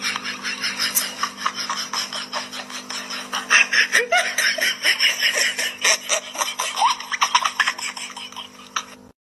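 A person laughing in rapid breathy bursts, several a second, over a steady low hum.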